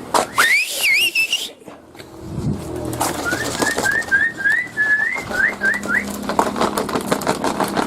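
A person whistling a run of short, rising calls, about three a second, to call a dog. Near the start there is a louder high, rising whine, and near the end some short clicks.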